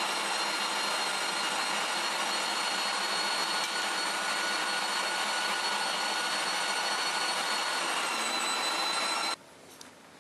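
Electric meat grinder running steadily with a whine, pushing cooked pork liver and hock mince through its fine plate on the second pass. It cuts off abruptly about nine seconds in.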